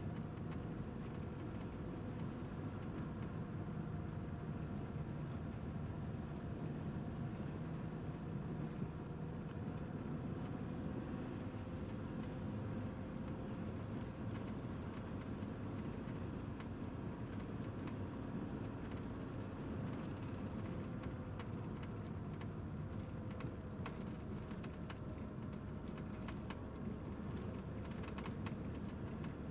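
Steady engine and road noise of a motorhome on the move, with a faint hum that drifts slightly in pitch and a few light rattles and clicks in the last several seconds.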